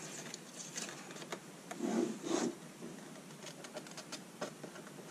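Hands handling and turning over plastic kit panels held with painter's tape: light rustling and small clicks, with a couple of soft bumps about two seconds in.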